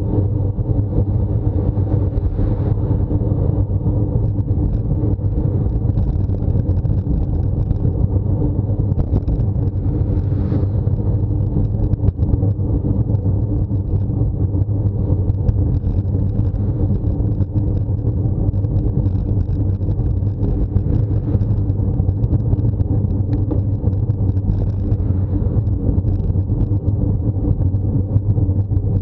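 Steady low rumble of wind and road noise on the microphone of a camera mounted on a road bike being ridden uphill, unchanging throughout.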